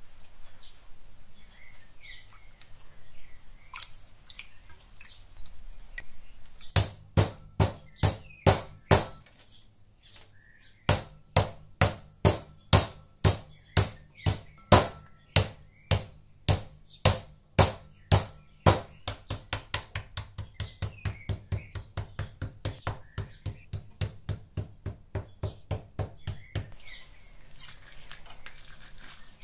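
A wooden meat tenderizer mallet pounds raw pork steaks against a plastic cutting board, tenderizing and flattening the meat. The blows come in steady runs, about two to three a second, with a short pause early on. The last run is softer and quicker and stops a couple of seconds before the end.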